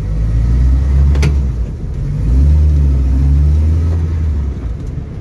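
Renault Clio 172 two-litre four-cylinder engine, fitted in a Peugeot 309 rally car, heard from inside the cabin: a low, steady drone as the car is driven slowly. There is a single sharp knock about a second in.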